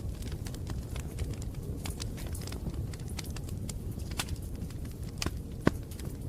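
Bonfire burning: a steady low rumble of flames with scattered crackles and pops of the burning wood, and one sharper pop near the end.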